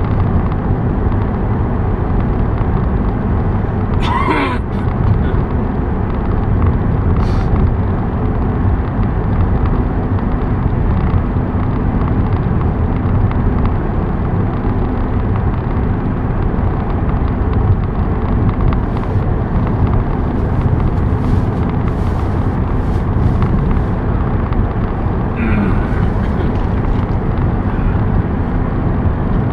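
Steady road and engine noise heard from inside a car cruising on a highway, with a few brief short sounds about four seconds in and again near the end.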